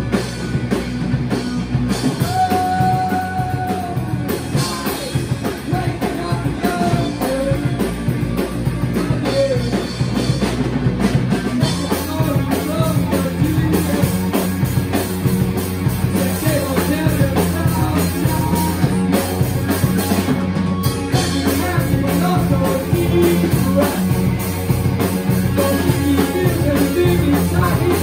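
Live rock band playing: electric guitar, bass guitar and drum kit, with a singer on a microphone. The low end gets heavier about twelve seconds in.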